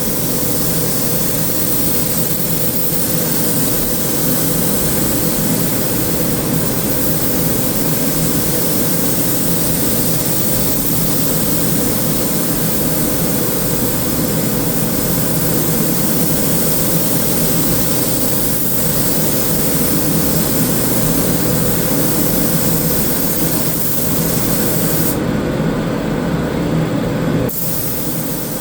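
Paint spray gun spraying sealer primer: a steady hiss of air with a low hum underneath, the hiss dropping off near the end.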